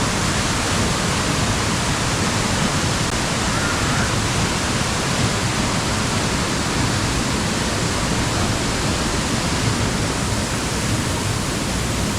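Waterfall: water pouring down onto rock and pool, a loud, steady rush without pause.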